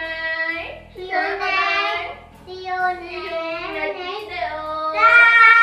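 A child singing a tune with long held notes over a steady backing beat, louder near the end.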